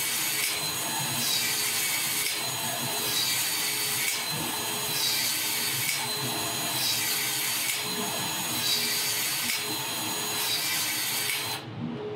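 Uponor ProPEX power expansion tool running, its motor working the expander head in repeated cycles about once a second as it expands the end of a PEX pipe. The tool stops shortly before the end.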